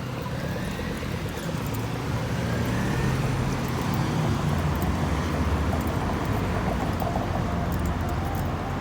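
Road traffic passing close by: a steady low rumble of vehicle engines and tyres that grows louder about two seconds in and stays up, with a faint rising whine early on.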